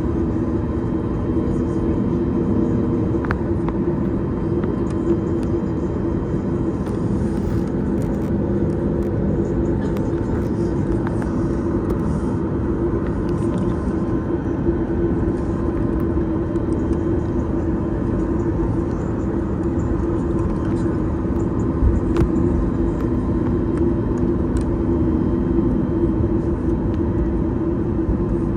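Steady drone inside the cabin of a Boeing 737-8 MAX on the ground before takeoff, with a constant low hum that holds level throughout and a few faint knocks, the loudest about three quarters of the way through.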